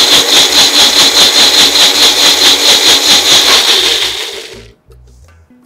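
Electric mixer grinder (mixie) running at full speed, grinding a wet green chutney paste in a small jar, with a high whine and a rapid throb. It is switched off a little over four seconds in and spins down over about half a second.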